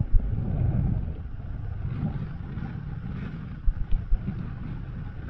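Wind buffeting the microphone over the running noise of a moving vehicle, with a few short thumps about four seconds in.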